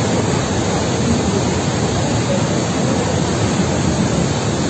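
Mountain river in flood, a loud, steady, unbroken rush of floodwater.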